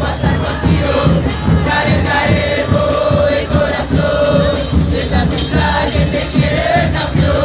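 Football supporters chanting a song in unison in the stands, carried by a fast, steady drumbeat.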